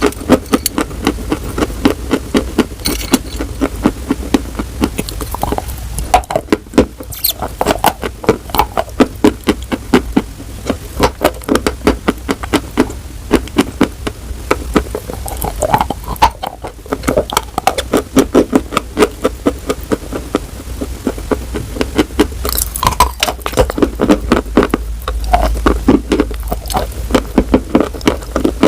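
Close-miked crunching of something brittle being bitten and chewed, a rapid stream of sharp crunches, several a second.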